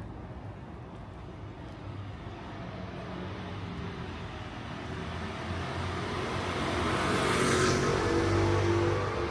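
A car approaching and passing close by: engine and tyre noise grow louder over several seconds and are loudest about three-quarters of the way through, then begin to fall away.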